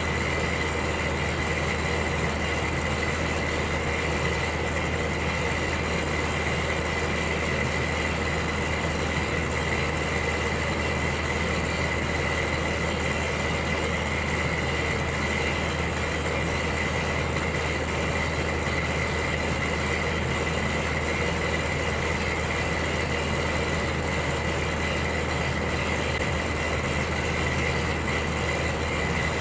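Electric heater running with a steady hum and an even rushing hiss, with a thin, constant high whine over it.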